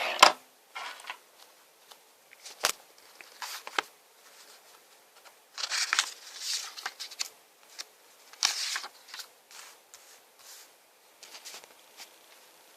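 Handling noises of a phone unboxing: packaging rustling and scraping in short spells, with sharp clicks near the start and about two and a half seconds in.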